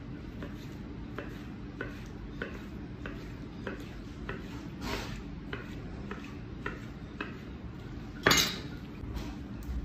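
Chef's knife cutting a fish fillet into cubes on a plastic cutting board, the blade knocking the board in a steady rhythm of about three strokes every two seconds. A little past eight seconds there is one much louder clatter.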